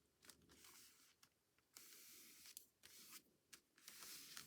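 Faint rustling and sliding of paper being handled, in a few short stretches with light clicks between them.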